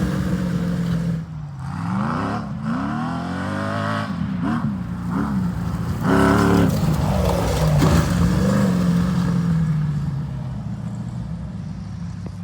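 Sandrail's 6.0-litre LS V8 with LS3 heads revving hard, its pitch climbing and dropping several times under throttle. Near the end it holds a steadier note and fades away.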